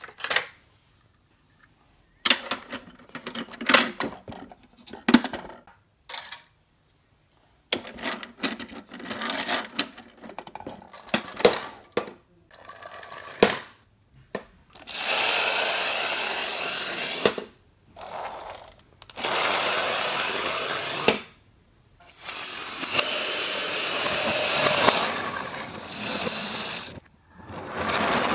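Hard plastic toy vehicles and garage pieces clattering and knocking as they are handled, in short scattered clicks with brief silent gaps. From about halfway a loud steady rushing hiss takes over in several stretches that cut in and out abruptly.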